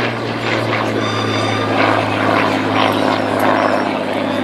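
Hawker Hurricane Mk I fighter flying past in display, its Rolls-Royce Merlin V12 engine and propeller running at a steady, even pitch.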